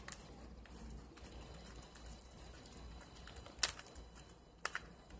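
Slime being squished and worked by hand in a plastic tub: soft, sticky crackling, with two sharp pops about a second apart near the end.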